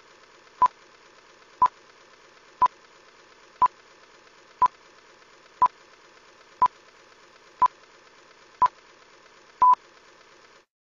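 Film-leader countdown sound effect: a short beep once a second, ten times, the last one a little longer, over a faint steady hiss. It all cuts off suddenly near the end.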